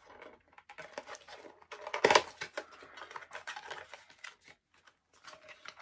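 Craft knife cutting the tape on a small cardboard product box: a run of short scrapes, clicks and rustles as the tape and cardboard are sliced, with one louder scrape about two seconds in.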